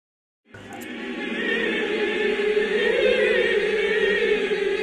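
Choral music: a choir holding one sustained chord, fading in about half a second in after a moment of silence.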